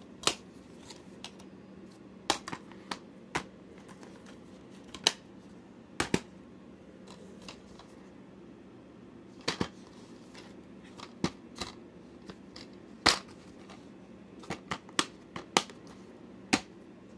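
Plastic DVD cases being handled: irregular sharp clicks and snaps, some in quick pairs, as cases are opened, shut, picked up and set down. A faint steady hum sits underneath.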